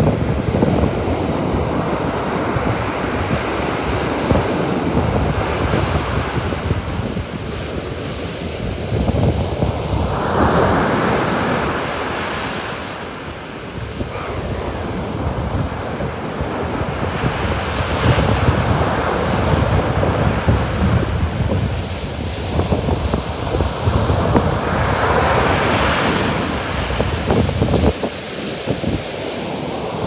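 Baltic Sea surf breaking on a sandy beach and its foam washing up the sand, the hiss swelling with each wave every several seconds. Wind buffets the microphone throughout.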